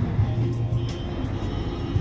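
Music with a steady beat: deep bass notes under an evenly ticking hi-hat.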